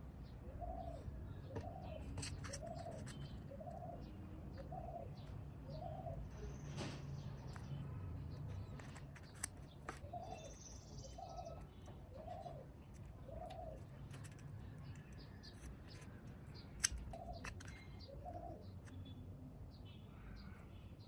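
A bird calling in the background: a short note repeated about once a second, in three runs of six, four and two. Faint scratches and clicks from the foam piece being handled, with one sharper click near the end.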